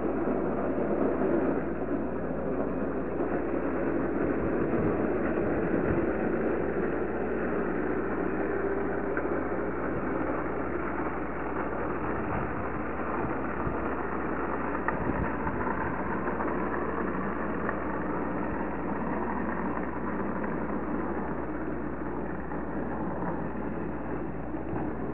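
A vehicle engine idling, heard as a steady rumble and hiss through a security camera's microphone.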